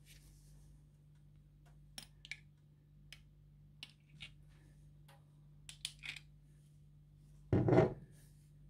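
Metal spoon clicking and scraping against a glass jar as sauce is scooped out, a few scattered light clicks, then one louder dull knock near the end as the spoon drops sauce onto a bun.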